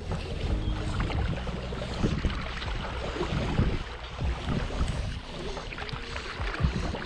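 Shallow river current rushing over stones, with wind buffeting the microphone.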